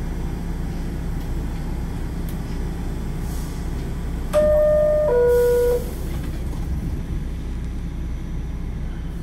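Inside a New York City subway car, a steady low rumble. About four seconds in, a loud two-note descending chime sounds once, lasting under two seconds, typical of the subway's door-closing chime.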